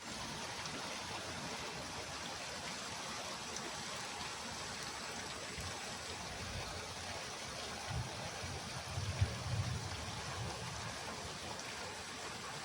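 Steady rush of water, with a few low bumps about eight and nine seconds in.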